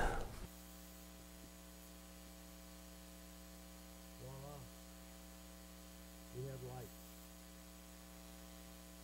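Faint, steady electrical mains hum from the lit fluorescent light fixture with its new ballast, with two brief faint pitched sounds a little past the middle.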